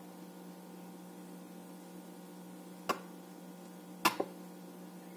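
Two sharp clicks about a second apart, the second quickly doubled, from crunchy cereal balls being pushed onto a wooden toothpick, over a steady low hum.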